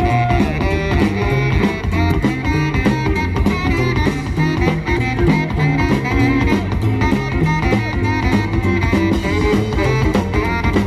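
A swing big band playing an instrumental passage live, with saxophone and brass over an upright bass line and no singing.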